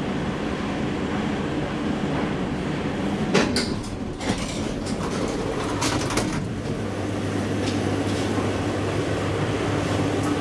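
Car of a 1985 KONE inclined elevator, heard from inside, running with a steady hum, then a few clunks and clicks between about three and six seconds in as it arrives and its sliding doors open. A steady low hum carries on after the doors are open.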